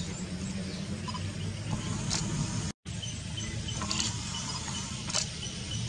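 Safari jeep's engine idling steadily, with a few faint clicks over it; the sound drops out for a moment near the middle.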